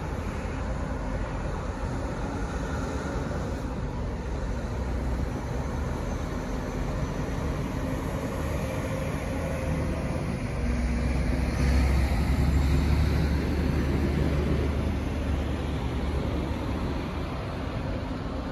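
Steady low diesel rumble of a train moving through the station, swelling a little past the middle and then easing back.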